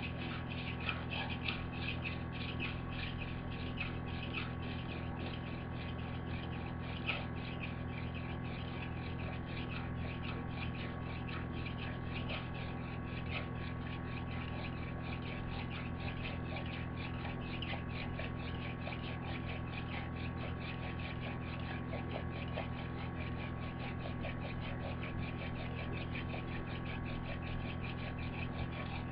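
Friction-fire hand drill: a wooden spindle twirled between the palms and grinding into a wooden hearth board, giving a fast, unbroken run of squeaky scratches as it drills in to build an ember. A steady low hum lies underneath.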